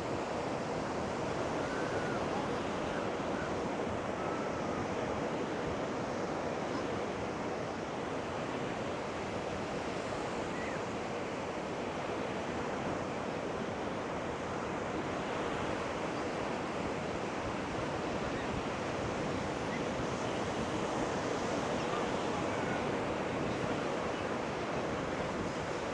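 Ocean surf breaking and washing on a beach, a steady even rush, with wind buffeting the microphone.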